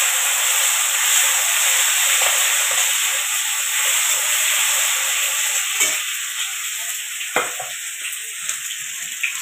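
Hot oil sizzling in an aluminium kadai where bay leaf and cumin have been tempered and tomato just added. The sizzle eases off through the second half, with a few short knocks near the end.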